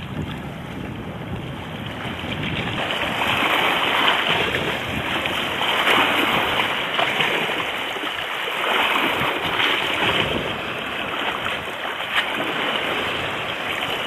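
Wind rushing on the microphone over sea water washing, swelling and easing every few seconds.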